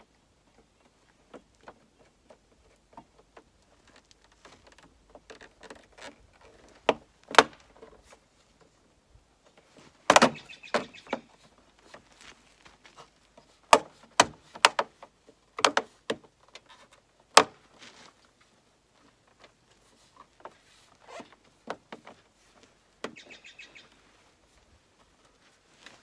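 Irregular sharp plastic clicks and knocks as a new plastic lower grille is pressed and snapped into a Mini Cooper S front bumper, with several louder snaps through the middle. Birds chirp faintly near the end.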